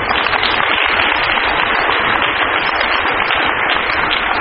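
An audience applauding steadily in a large hall.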